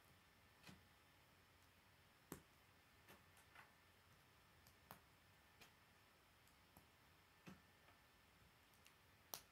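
Faint, irregular clicks of K'nex plastic rods and connectors being snapped together and handled, about a dozen in all, the sharpest about two seconds in and just before the end.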